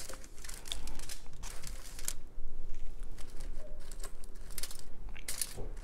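Close-up eating sounds: irregular crinkling and crackling as a hand picks through crinkle fries on a foil-lined tray, with chewing.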